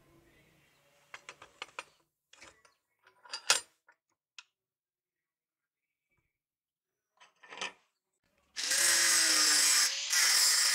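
Light metal clicks and one sharp metallic knock as a steel leaf-spring blade is set and clamped in a bench vise. About eight and a half seconds in, an angle grinder with a thin cutoff disc starts up and runs loudly, with a brief dip about a second and a half later.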